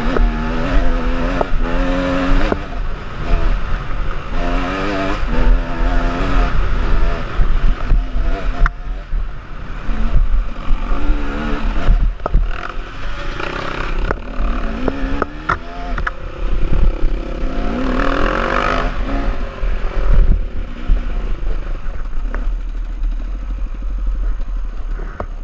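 KTM EXC two-stroke enduro motorcycle engine revving up and down over and over as the bike is ridden over rough trail, with wind buffeting the helmet microphone and scattered knocks and rattles from the bike. The engine settles lower near the end as the bike slows.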